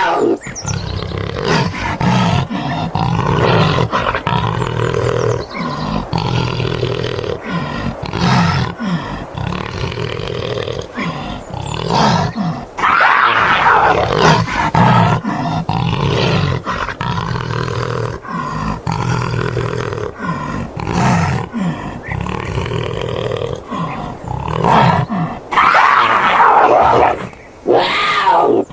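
A panther (big cat) roaring and growling in a run of repeated throaty calls, with a few louder drawn-out roars.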